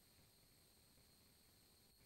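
Near silence: faint hiss of the recording with a faint, steady high-pitched whine.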